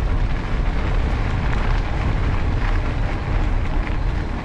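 Wind rushing over the microphone of a camera on a moving mountain bike, a steady low rumble with the bike's rolling noise under it.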